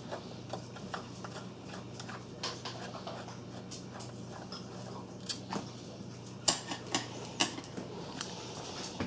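Phillips screwdriver backing out the screws that hold the metal shield cage on a Commodore 1541 disk drive: scattered small clicks and ticks, a few sharper ones in the second half, over a faint steady hum.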